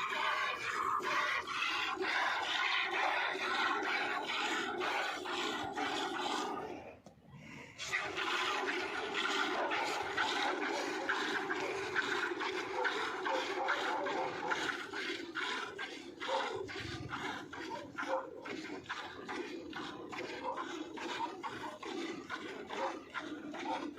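Nili-Ravi buffalo being milked by hand: streams of milk squirting rhythmically into a bucket already holding milk, with a short pause about seven seconds in.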